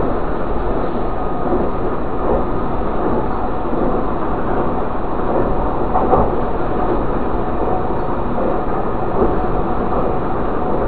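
Passenger train running at speed through a station without stopping, heard from inside the carriage: a steady rumble of wheels on rail, with a few slightly louder moments along the way.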